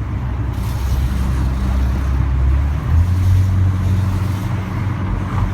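BMW 330Ci E46's 3.0-litre straight-six running at low revs, its low hum stepping up in pitch about three seconds in. The car, a 2001 automatic, makes a strange noise when the gearbox changes gear at low revs.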